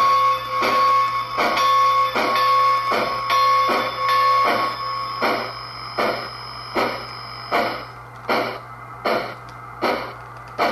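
Soundtraxx digital sound decoder in a model steam locomotive playing steam exhaust chuffs at a steady beat of about four every three seconds. A steady tone runs beneath them and drops away about halfway through. The chuffs grow weaker and shorter in the second half as the locomotive moves off.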